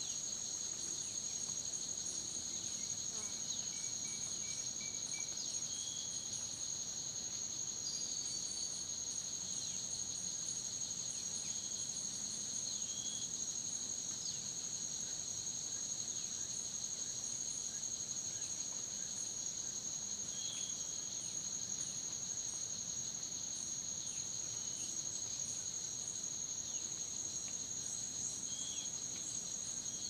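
Rainforest insect chorus: a steady, high-pitched drone of calling insects, with scattered short chirps over it.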